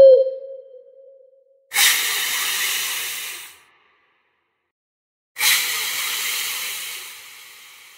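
A wavering tone ends right at the start. Then come two hisses, one starting near the two-second mark and one a few seconds later, each starting suddenly and fading over about two seconds.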